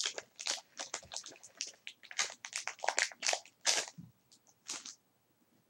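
Foil booster pack wrapper crinkling and tearing as it is opened by hand: a run of short, irregular crackles that stops near the end.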